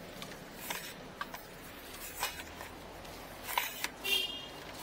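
Faint scattered clicks and rustles of a fibre-optic cable being handled and pulled slowly by hand, with a brief high squeak about four seconds in.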